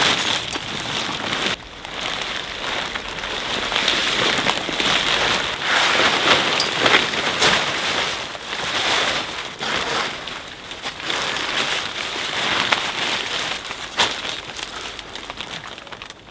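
Rustling and crinkling of a portable toilet tent's fabric being unpacked and set up by hand: a dense, uneven crackle with many small clicks and a brief lull about a second and a half in.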